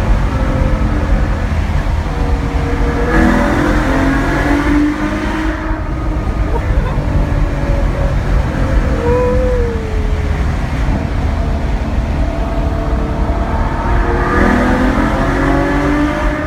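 Ferrari FF's V12 engine over a steady low traffic rumble, its note rising twice as it accelerates: about three seconds in and again near the end.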